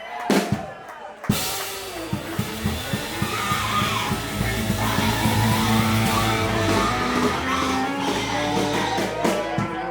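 Live funk band playing: a few drum hits, then about a second in the full band comes in with drum kit, bass and sustained pitched lines over a steady beat.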